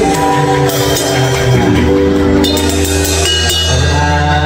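Live band music: a drum kit played with sticks, cymbals crashing, over a strummed acoustic guitar and held pitched notes.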